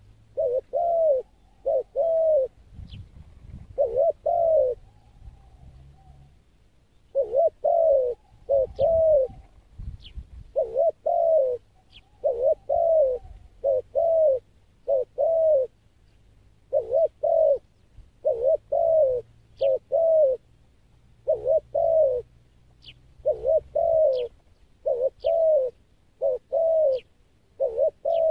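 Spotted dove cooing over and over in short phrases of two or three coos, with faint high chirps of small birds in between.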